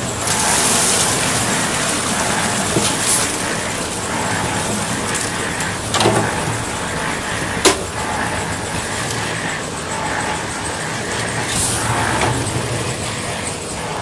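Concrete mixer running steadily as wet concrete slides out of its tipped drum into a steel wheelbarrow, with a brighter hiss in the first second or so. Two sharp knocks come about six and almost eight seconds in.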